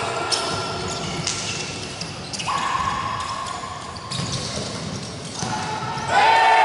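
Futsal ball being kicked and bouncing on a wooden gym court, the knocks echoing in the hall, with players calling out and a louder shout near the end.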